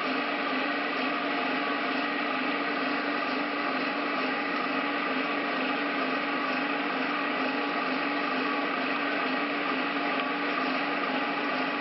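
A machine running steadily: a constant motor hum with a steady low tone and an even noise above it.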